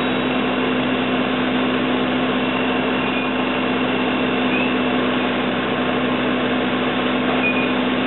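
An engine running steadily: a constant, even drone with a steady low hum.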